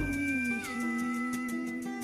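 Background music: a new chord strikes at the start and is held, with the notes shifting about half a second in, over a quick, steady ticking beat.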